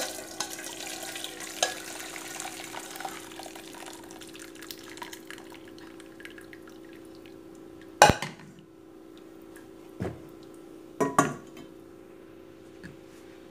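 Chicken broth trickling and dripping through a metal colander into a saucepan, thinning out over the first several seconds. Then a few sharp knocks of cookware, the loudest about eight seconds in, as the colander is taken off the pot. A steady low hum runs underneath.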